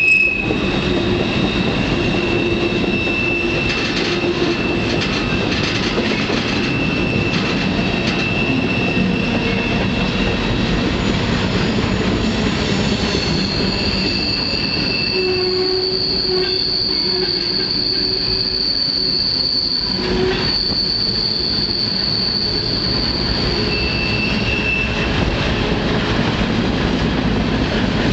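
Freight train rolling, heard from aboard a car: a steady rumble of wheels on rail with long, high-pitched wheel squeals. One squeal tone holds through the first half, and a higher one takes over about halfway through for several seconds.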